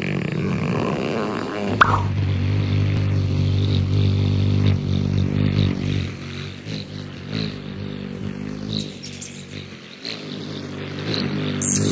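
Hummingbird wings humming in flight, a low steady buzz that starts about two seconds in, holds, then wavers and fades before swelling again near the end. Faint high chirps sound over it.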